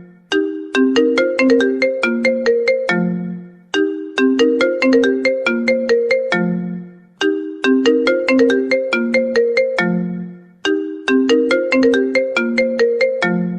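A smartphone ringtone: a short melody of quick, bell-like struck notes that repeats about every three and a half seconds, each phrase ending on a lower held note.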